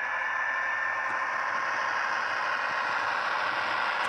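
H0-scale model freight wagons rolling along the track: a steady rattle and scrape of small metal wheels on the rails, with a faint thin whine in the first second or so, growing slightly louder as the wagons pass.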